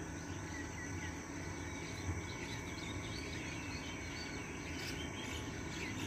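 Steady chorus of insects in the undergrowth with thin, unbroken high tones, and faint, scattered bird chirps over it.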